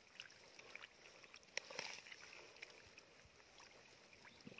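Near silence with faint rustling and a few small ticks, one a little louder about a second and a half in: a hand handling a bamboo eel-hook tube in mud and dry grass.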